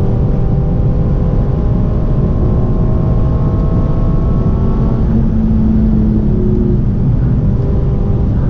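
Renault Mégane RS 280's turbocharged four-cylinder engine at full speed, heard inside the cabin over heavy road and wind noise. The engine note climbs slowly for about five seconds, then changes as the car comes off the throttle and slows.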